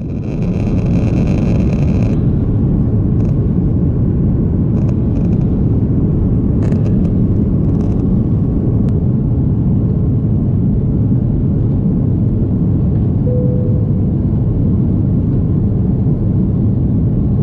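Airliner jet engines at high power and rushing air, heard inside the cabin by a window seat during takeoff and climb: a loud, steady rumble with a hiss above it and a higher whine over the first two seconds.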